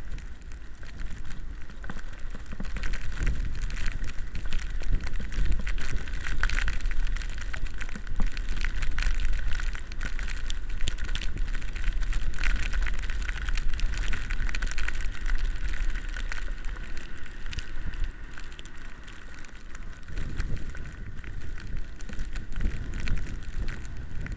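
Electric bicycle riding through snow, its tyres crackling in the snow, with wind buffeting the microphone as a steady low rumble and a steady high whine.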